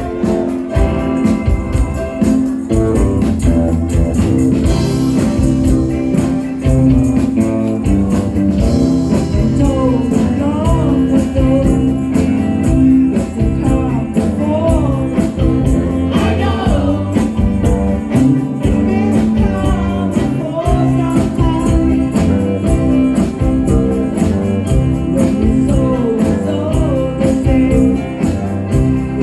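Band music with a steady beat, tambourine and guitar, with a voice singing over it from about ten seconds in.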